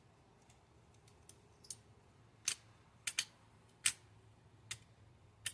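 Parts and their packaging being handled by hand: a string of about ten sharp, irregular clicks and crackles, the loudest in the middle.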